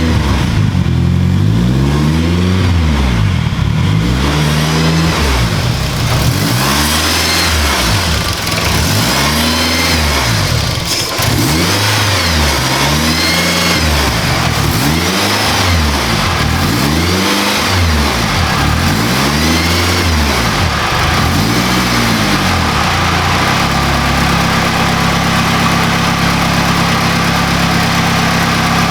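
Honda S2000's four-cylinder engine breathing through a titanium Amuse R1000 exhaust, revved up and back down about every two seconds, ten or so times, then settling to a steady idle near the end.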